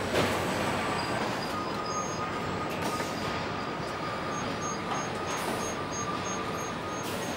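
Car assembly plant ambience: a steady din of production-line machinery, with a faint high whine and, from about halfway, a thin high beep pulsing about three times a second.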